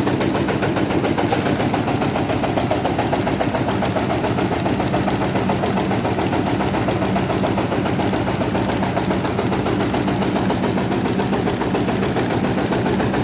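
Engine-driven tobacco shredding machine running, a rapid, even clatter over a steady engine hum.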